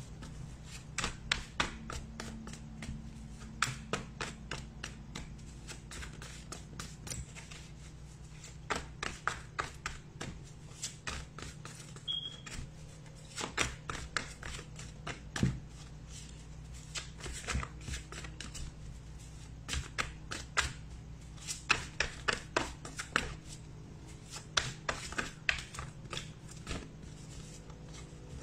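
A deck of tarot cards being shuffled by hand: many quick papery card clicks and flicks in irregular clusters, pausing briefly between runs.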